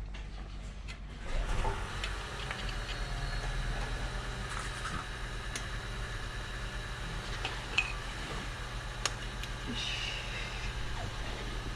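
Steady low hum of workshop machinery with light metal clicks and taps from work on a brake caliper, including two sharp clicks about eight and nine seconds in.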